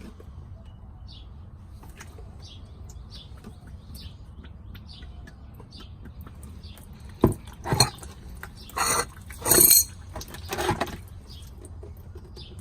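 Small birds chirping in short repeated calls, and from about seven seconds in a run of clinks and scraping rattles over some four seconds as the fuel filter and its cap are handled.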